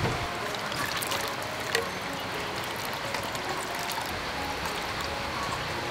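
Liquid pouring in a steady trickle through a fine metal mesh strainer into a bowl.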